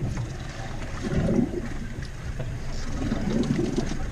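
Steady low rumble of wind and sea on a small boat, with faint murmured voices now and then.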